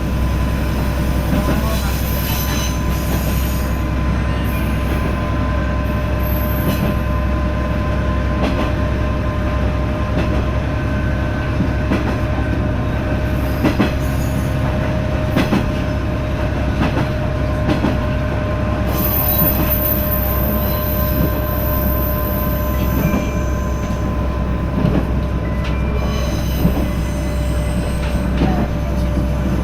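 Diesel railcar running along the track, heard from inside the train: a steady low rumble with a faint steady whine, scattered clicks from the rails, and a high wheel squeal for a few seconds about two-thirds of the way through, with briefer, fainter squeals early on.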